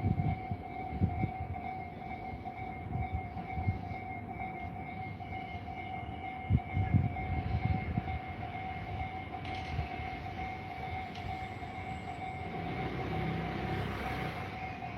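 Railway level-crossing alarm ringing its repeating electronic two-tone warning without a break, the sign that the crossing is closed for a train. Under it a train rumbles past with a few heavy thumps, loudest about seven seconds in, and a rising rumble near the end.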